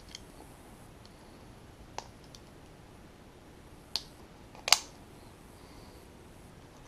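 Small screwdriver tip clicking and scraping against the metal gland of a hydraulic cylinder while prying out the old flat bushing. A handful of sharp clicks come a second or two apart, the loudest about two-thirds of the way through.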